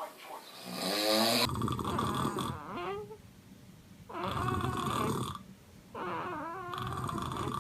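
A man snoring: three long, rough snoring breaths, each about a second and a half, with short pauses between.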